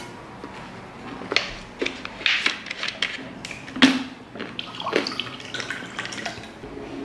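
Water poured from a large plastic bottle into a glass, with the plastic crackling and clicking as the bottle is handled.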